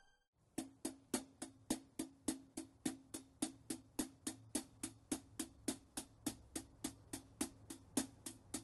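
Background music opening with a steady ticking percussion pulse, about three and a half ticks a second, each tick carrying a short low note. It starts about half a second in.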